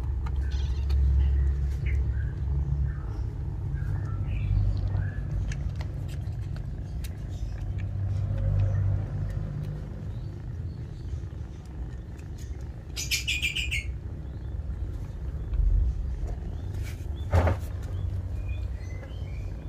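Small birds chirping in the background over a steady low rumble, with a brief buzzy trill about thirteen seconds in and a single sharp click a few seconds later.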